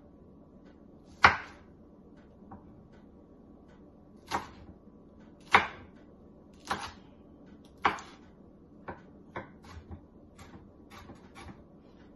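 Kitchen knocks and clatter: five sharp knocks roughly a second apart, then lighter clicks and taps near the end.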